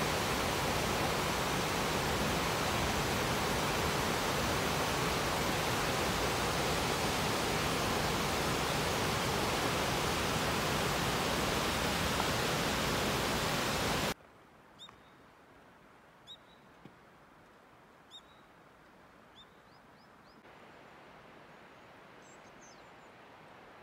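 Rushing river water tumbling over a small weir and rapids, a steady rush that cuts off abruptly about 14 seconds in. After the cut it is quiet, with a few short, high bird chirps.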